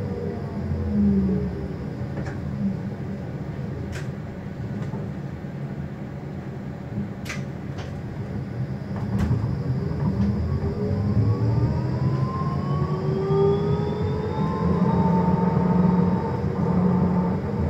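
Tram heard from on board: the electric traction motors' whine falls as it slows at the start and, after a few seconds of low rumble, rises again in several pitches as it pulls away, levelling off near the end. Steady rumble of the running gear throughout, with a few sharp clicks in the slow middle part.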